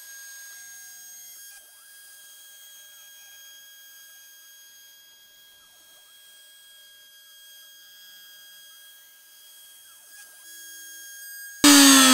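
Steady, faint high-pitched electrical whine, a single tone with overtones, from the Shapeoko 3XL CNC router's motors as it starts a trial outline pass. Near the end a much louder sound cuts in suddenly, its pitch falling.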